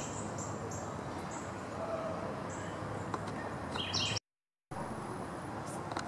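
Small songbirds calling: a few faint, very high thin notes spaced through the first half, then a louder phrase of quickly repeated notes. The louder phrase breaks off when the sound drops out for half a second near the end.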